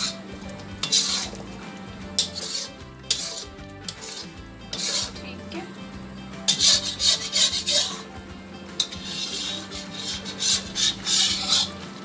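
Metal spatula stirring thick mutton curry in a black iron karahi, scraping and rasping against the pan in spells of quick strokes, busiest in the second half.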